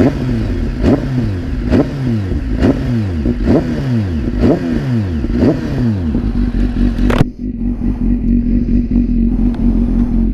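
BMW S1000RR inline-four engine blipped on the throttle at a standstill, about once a second, each rev rising sharply and falling back. About seven seconds in the revving stops abruptly and the engine settles to a steady idle.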